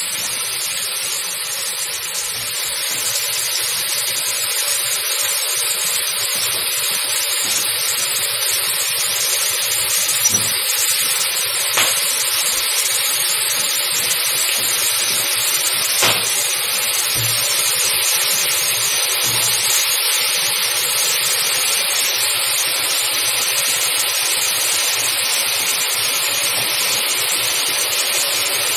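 Steady sizzling hiss of red-hot metal balls melting into a block of ice, the meltwater flashing to steam. A few faint clicks partway through.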